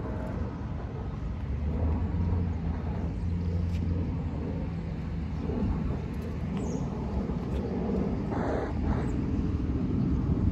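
A car engine's steady low hum, growing a little louder toward the end, with a brief scuff about eight and a half seconds in.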